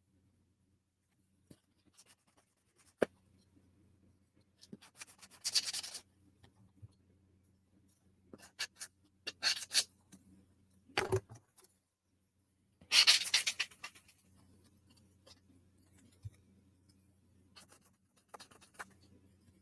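Small wooden puzzle pieces being handled and fitted together: scattered light clicks and short scraping rubs of wood on wood, with a sharper knock about eleven seconds in.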